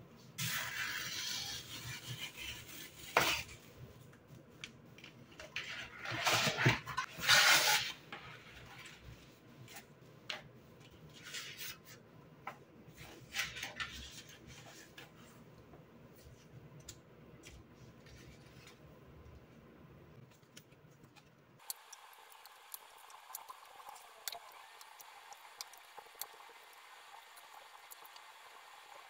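Quiet household handling sounds: light clinks of dishes and utensils with rustling, louder in a few bursts during the first eight seconds. About 21 seconds in the sound changes abruptly to a thinner background with scattered light ticks.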